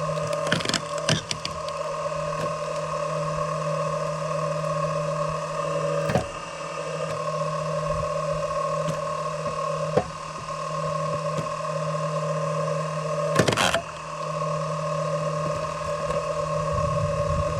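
A steady mechanical hum holding the same few pitches throughout, with four sharp knocks several seconds apart, typical of wood being split.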